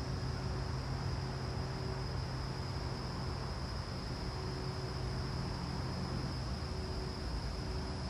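Cummins QSL9 six-cylinder diesel engine of a Hyster reach stacker idling steadily: a low, even hum under a hiss, with a thin steady high-pitched whine over it.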